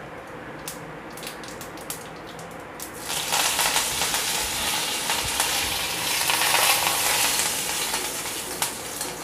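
Curry leaves dropped into hot oil in a black kadai sizzle, a loud steady hiss that starts about three seconds in as the tadka takes the leaves. Before that, small scattered pops crackle in the oil.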